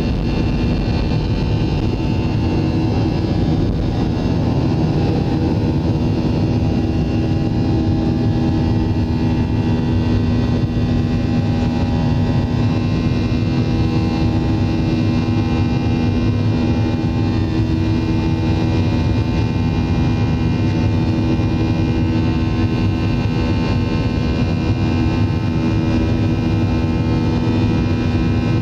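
Boeing 737 jet engines at takeoff thrust, heard inside the cabin over the wing: a loud steady rush of noise with a few held droning tones as the airliner leaves the runway and climbs.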